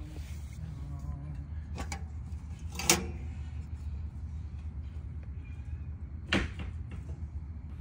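A few short knocks and clicks from parts of a steel camp wood stove being handled, the loudest a sharp click about three seconds in and another about six seconds in, over a steady low rumble.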